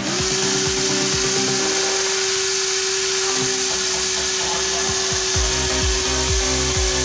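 Small 180-size DC hobby motor spinning a plastic propeller on a popsicle-stick toy airplane: switched on, it spins up at once to a steady high whine with an airy buzz, holding one pitch. Electronic dance music with a beat plays underneath.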